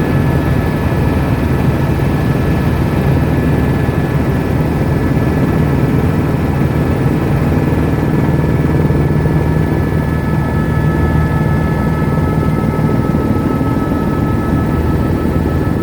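Helicopter in flight, heard from inside the cabin: a steady, loud rotor and engine drone with a thin high whine riding over it.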